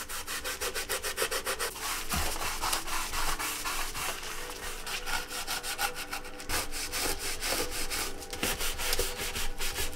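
Wood stain being rubbed into bare holly wood with a gloved hand: quick, repeated rubbing strokes of glove on wood.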